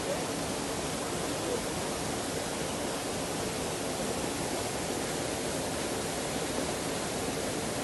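Steady rushing of a waterfall, water pouring down onto the rocks.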